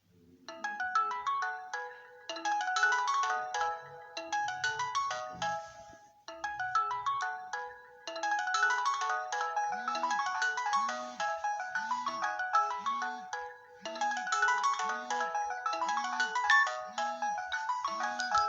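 Mobile phone alarm tone playing: a bright, quick electronic melody of short notes in repeating phrases, joined about halfway through by a pulsing low note about once a second.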